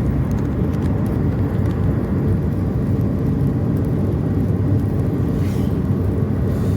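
Steady low rumble of a car's engine and tyres on the road while driving along.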